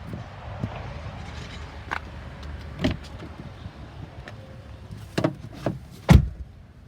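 Knocks and clunks of someone climbing into a Jeep Wrangler's cab, over a low steady rumble, ending with a loud thump about six seconds in as the door shuts.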